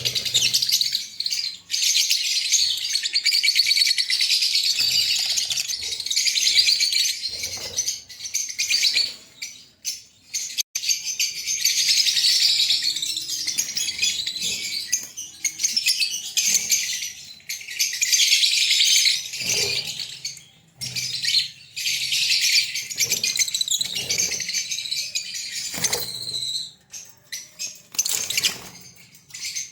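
A breeding pair of green Fischer's lovebirds chattering and chirping in long, high-pitched runs broken by short pauses, with a couple of dull knocks in the second half.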